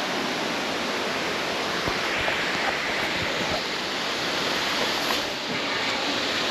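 Steady rushing of river water over rocks at a small waterfall, with a few faint knocks.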